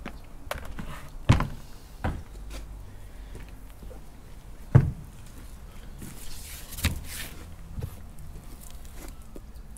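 Scattered sharp knocks and thuds from whole fish and a fillet knife being handled on a plastic cutting board. The loudest comes about five seconds in.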